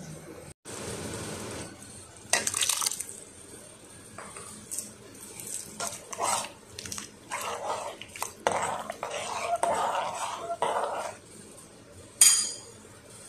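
A metal spoon stirring and scraping in a pot of soup with irregular clinks against the pot, and a sharp ringing metallic clink near the end.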